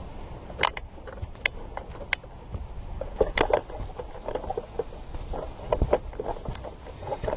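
Footsteps on a rocky dirt trail climbing uphill: irregular crunches and sharp clicks of boots on stone.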